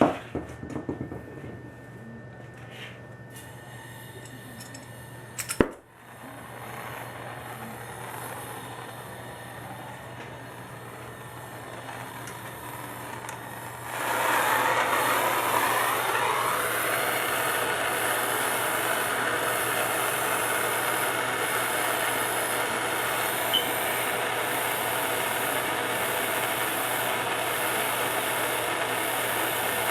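A plumber's handheld gas torch, lit about halfway through and then burning with a steady hiss while it heats a copper pipe joint for soldering. Before it lights, there are a few sharp clicks.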